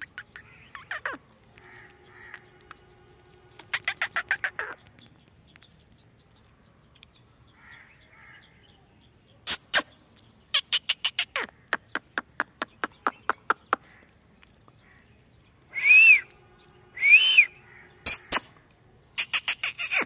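Indian ringneck parakeet making runs of rapid, sharp clicks, with two loud, short rising-and-falling calls about three-quarters of the way through.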